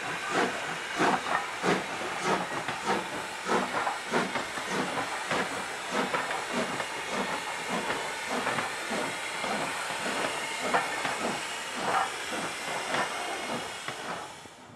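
Steam locomotive No. 475, a 4-8-0, working a freight train as it passes close: a steady beat of exhaust chuffs, about two to three a second, over steam hissing, then the tender and freight cars rolling by.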